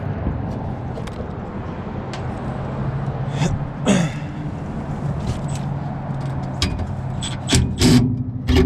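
Clicks and metallic clanks of tools and furnace parts being handled as the burner is worked loose, over a steady low hum. The louder knocks come about three and a half and four seconds in, with a quick run of clicks near the end.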